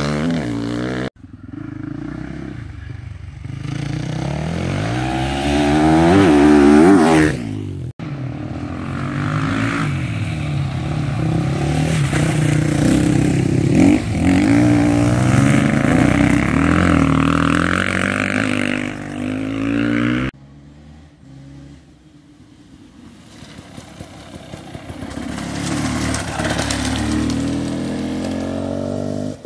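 Off-road rally raid motorcycles passing one after another on dirt tracks, engines revving up and down through the gears. The sound changes abruptly between passes, and the last bike is quieter, getting louder near the end.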